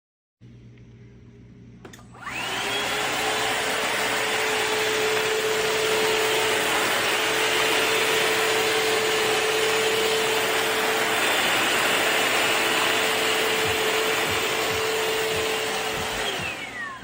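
Shark VacMop Pro cordless vacuum mop switched on with a click about two seconds in, its motor spinning up to a steady whine under a loud rush of suction. It is switched off near the end, the whine falling in pitch as the motor winds down.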